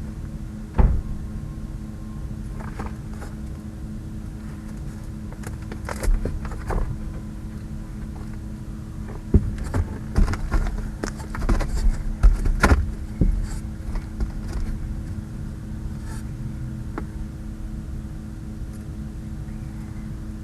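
Scattered knocks, clicks and rustles of someone moving about and handling things in an attic, busiest in the middle, over a steady low hum of a few fixed tones.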